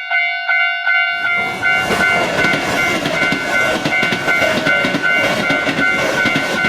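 Railroad crossing warning alarm ringing in a steady repeating pulse. About a second in, a train passing through the crossing comes in loud, its rumble and wheel clatter running under the alarm, which keeps sounding.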